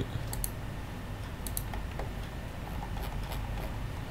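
A few faint, scattered computer keyboard clicks over a low steady hum, with a sharper click near the end.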